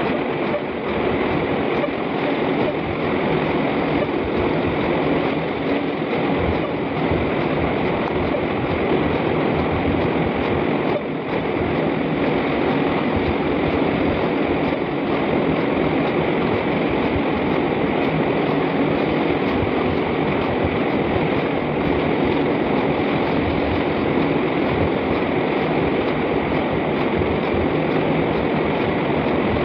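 Steady, loud rushing noise with no clear rhythm and no words.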